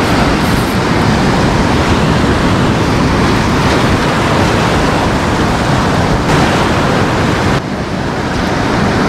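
Surf breaking and washing over rocks in loud, steady white-water, with wind rumbling on the microphone; it eases slightly near the end.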